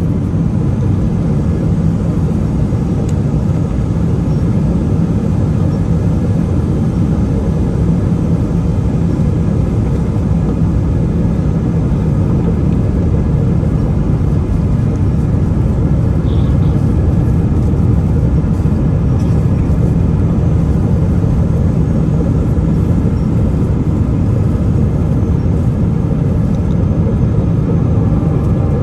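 Boeing 777-300 airliner's engine and airflow noise: a steady, unchanging low rumble with a few faint constant tones above it.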